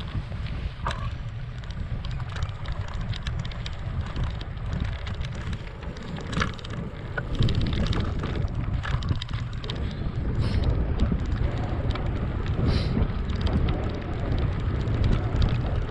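Wind buffeting the camera microphone as a gravel bike is ridden along, a gusting rumble that grows louder about halfway through. Scattered clicks and rattles from the bike run through it.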